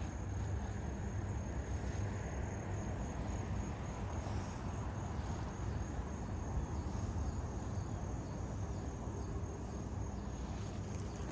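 Crickets chirping in a steady, high, pulsing trill over a low rumble of outdoor background noise.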